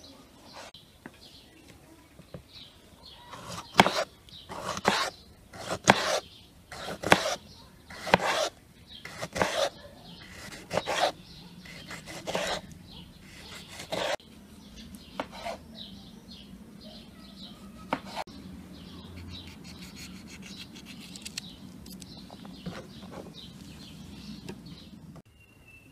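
Kitchen knife slicing tomato and yellow pepper on a wooden cutting board: a run of sharp knocks of the blade on the board, about one to two a second, through the first half. After that the cutting goes on more quietly and sparsely.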